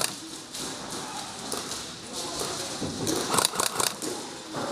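Airsoft fire in a skirmish: short runs of sharp clacks, a few scattered ones early, the busiest burst about three seconds in and another near the end.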